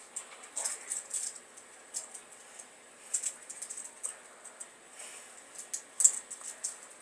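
Toy handcuffs clinking and rattling as hands work at them behind the back: irregular small metallic clicks and jingles, the loudest about six seconds in.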